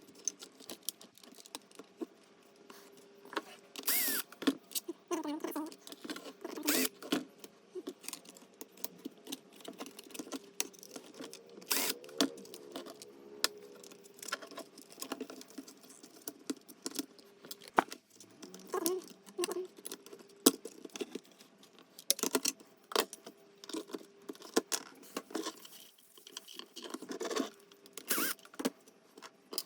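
Irregular clicks, taps and light rattles of parts being handled and unclipped while a Sharp R270 microwave is being taken apart, over a faint steady hum.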